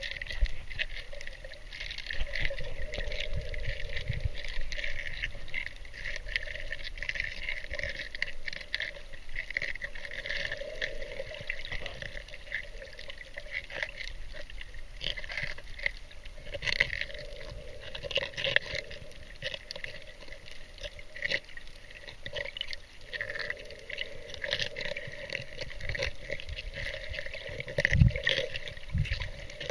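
Underwater sound through a camera's waterproof housing: a muffled, steady wash of water noise with a constant scatter of fine clicks and crackles. A couple of low thumps come near the end.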